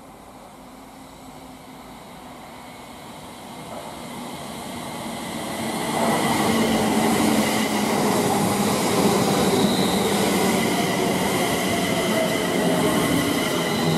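London Northwestern Class 350 Desiro electric multiple unit arriving at the platform. It grows louder as it approaches, reaches the microphone about six seconds in, then runs on as a steady rumble with high whining tones.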